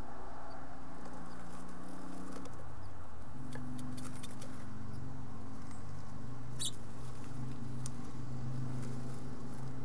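House finch fledglings shuffling in a nest box: scattered light scratches and taps of claws on the box floor, over a steady low hum.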